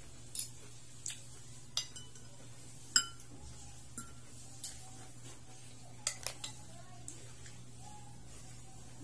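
Metal spoon and fork clinking and scraping against a plate while eating: about a dozen sharp, irregular clinks, the loudest about three seconds in with a brief ring.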